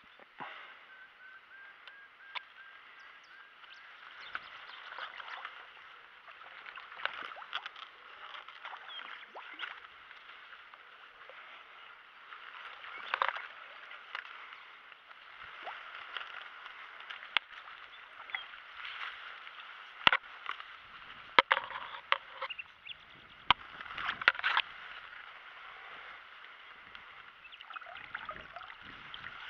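Water splashing and sloshing at the bank as a hooked carp is played close in among reeds, with scattered sharp clicks and rustles over a steady hiss. The loudest splashes come about 20 to 25 seconds in.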